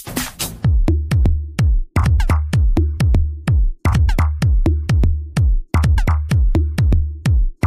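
Electronic dance music with a drum-machine beat: sharp kicks and hi-hats over a deep bass that comes in about half a second in.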